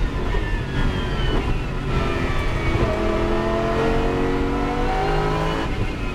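Lamborghini Super Trofeo race car's V10, heard from inside the cockpit: revs fall as the car brakes hard and shifts down for a corner, then climb steadily as it accelerates out.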